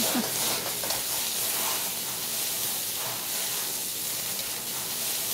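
Snow peas, asparagus and ginger sizzling in a very hot wok while being stirred with a ladle: a steady frying hiss.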